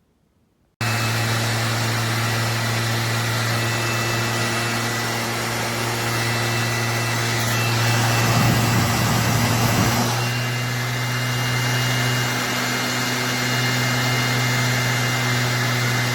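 DEWALT DWE6423 5-inch random orbit sander switched on about a second in and running at a steady speed: a steady motor hum with a thin high whine above it. It gets louder and rougher for about two seconds around the middle.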